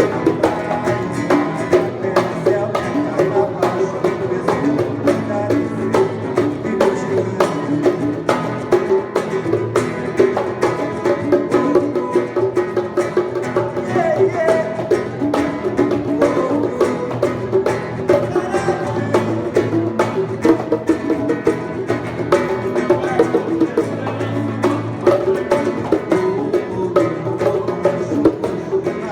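Live acoustic music: a violão (nylon-string acoustic guitar) plays with bongos and a berimbau, in a steady rhythm of frequent drum and string strikes.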